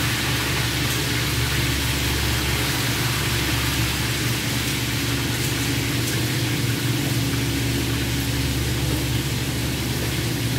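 Fish frying in a wok of hot oil, a steady sizzle, over a steady low mechanical hum.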